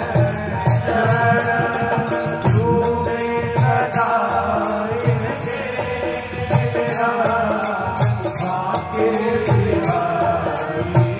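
Devotional Radha bhajan sung by a male voice, with a steady beat of jingling percussion and low drum strokes.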